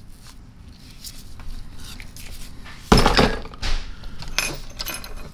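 Air impact wrench housing set down on a wooden workbench with a single thunk about three seconds in, amid quieter clicks and handling of loose metal parts.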